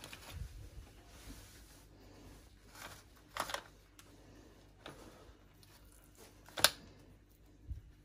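Foil lid and spoon handled in a tray of wet dog food: scattered soft rustles, crinkles and scrapes, with a sharp click about two-thirds of the way through and a dull thump near the end.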